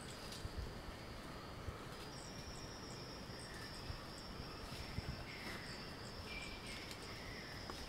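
Steady high-pitched drone of forest insects, with faint scattered ticks and rustles.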